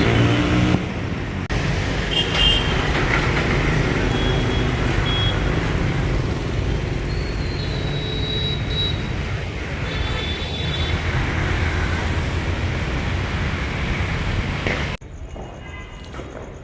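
Street traffic noise, a steady rumble of passing vehicles, with several short horn toots scattered through it. It cuts off abruptly near the end.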